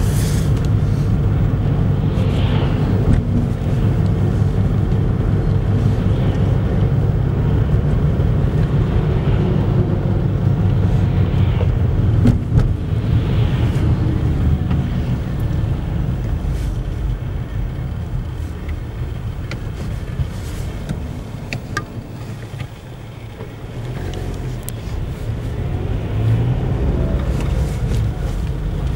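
Road noise from inside a moving car: a steady low rumble of tyres and engine. It grows quieter for a few seconds about three quarters of the way through, then builds again.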